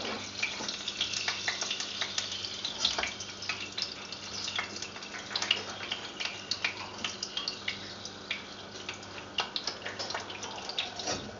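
Whole sea bream frying in a pan of hot cooking oil: a steady sizzle with frequent small crackles and pops of spattering oil.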